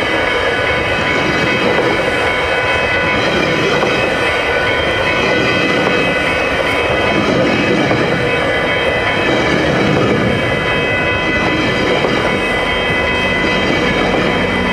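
GO Transit bilevel coaches rolling past at speed, wheels clattering over the rails in a loud, steady rush, with steady high-pitched tones ringing over it. Near the end a low engine drone builds as the MP40PH-3C diesel locomotive pushing at the rear approaches.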